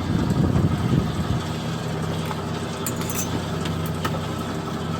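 Fishing boat's engine running steadily, a constant low hum. A louder, uneven low rumble comes over it for about the first second and a half, with a few faint metallic clicks near the middle.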